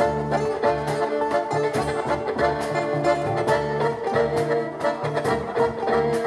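A live French folk band plays a bourrée in two time on diatonic button accordion, fiddle, acoustic guitar and double bass, with a steady pulse of about two beats a second.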